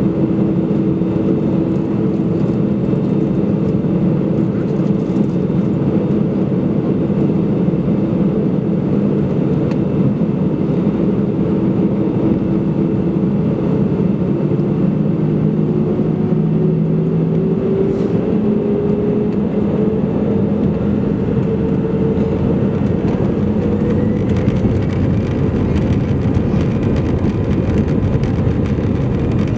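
Airbus A320 jet engines heard from inside the cabin over the wing, running at low taxi power: a steady rumble and hum. About halfway through, one engine tone slowly rises in pitch.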